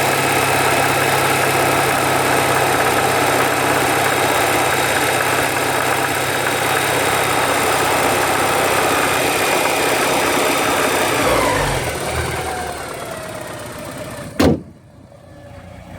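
1985 Porsche 944's four-cylinder engine running at a steady speed, held around the revs where the owner hears a knock that he takes for rod knock. About eleven seconds in the revs fall away and the sound dies down, and a single sharp thump follows near the end.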